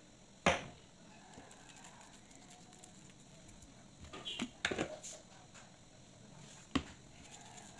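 A few sharp knocks: one about half a second in, a short cluster of clatter around four to five seconds, and one more near the end, over a faint steady background.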